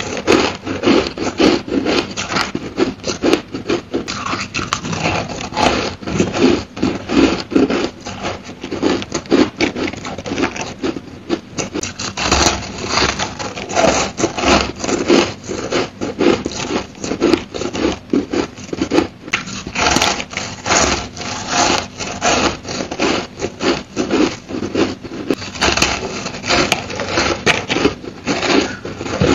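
Purple crushed ice being chewed close to the microphone: rapid, continuous crunching and grinding of the icy granules between the teeth.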